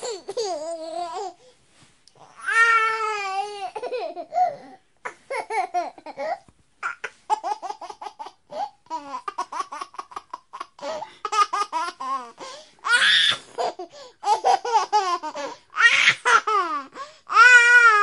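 A baby laughing and babbling: long calls that rise and fall in pitch alternate with runs of quick, short laughs.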